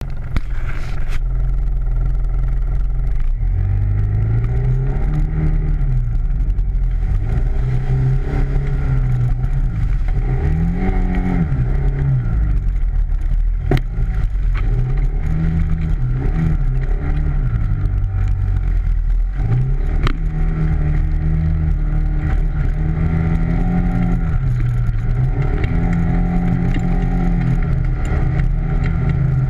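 ATV engine running, its pitch rising and falling again and again as the throttle is opened and eased off. A couple of sharp clicks come partway through.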